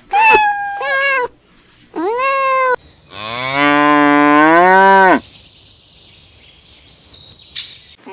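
A cat meows three times in the first three seconds, then a cow gives one long, loud moo lasting about two seconds. A faint high buzz follows the moo.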